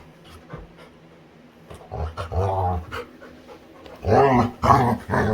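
Labrador retriever making playful vocal sounds: one low, wavering grumble about two seconds in, then a louder run of three near the end.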